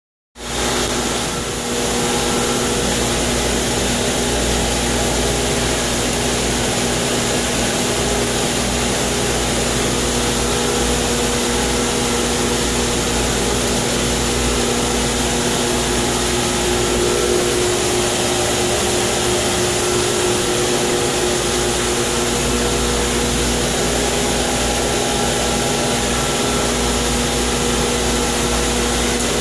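Water-treatment pump equipment running steadily: a constant motor hum over a loud, even rushing noise, with no change throughout.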